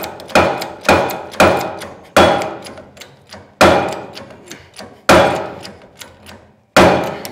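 About eight sharp metal clanks, each ringing out, coming farther apart toward the end, as a 15-ton hydraulic puller is worked to press out a seized rotary-cutter wheel spindle.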